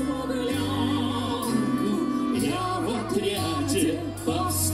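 A live big band of brass and wind players performing, with a sustained bass line moving from note to note under the full ensemble.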